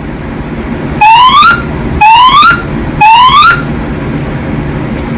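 School building's fire alarm sounding its evacuation tone: three rising whoop sweeps, each about half a second long and a second apart, in the three-pulse temporal pattern that signals evacuation. A steady low rumble runs underneath.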